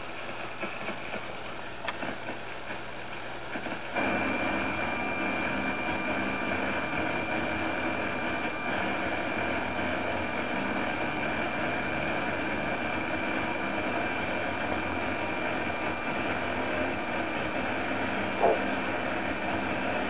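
Steady hiss with a thin high whine from a television's audio during the national Emergency Alert System test. It is fainter until about four seconds in, then steps up and holds steady, with one short blip near the end.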